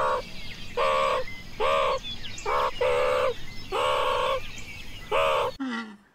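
Meerkat calling: a run of about seven short, high yelping calls, each under half a second, with faint small-bird chirps behind them. The calls stop abruptly near the end.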